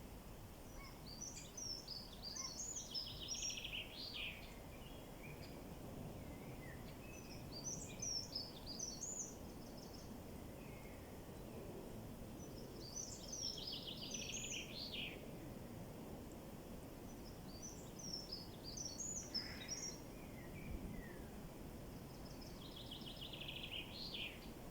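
A songbird repeats the same short song about every five seconds, five times in all. Each song is a quick run of high notes that ends in a lower, descending trill, heard over a steady low background rush.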